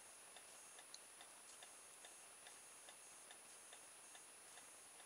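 Near silence: room tone with a faint, regular ticking, a little over two ticks a second.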